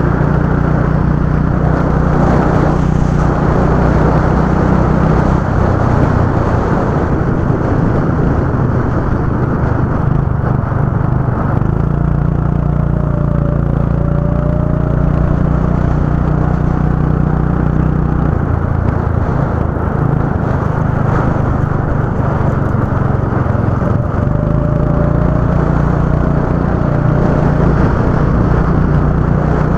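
Go-kart engine running hard and continuously, its note shifting up and down every few seconds as the throttle changes.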